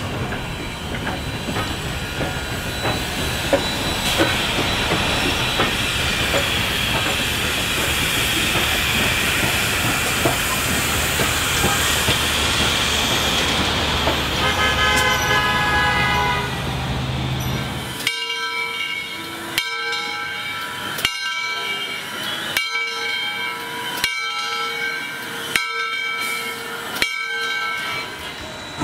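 Double-headed steam locomotives Southern Railway 630 (a 2-8-0) and 4501 (a 2-8-2) pass under power with a dense rush of exhaust and steam hiss, and then the train's cars roll by. About two thirds of the way in the sound drops to regular metallic strikes with a ringing tone, about one every second and a half.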